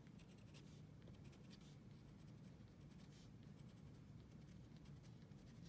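Faint scratching of a pencil making short strokes on paper.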